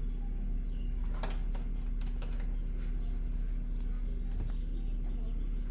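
Steady low hum with a few light clicks and taps, a cluster about a second in, another about two seconds in and one more past the four-second mark.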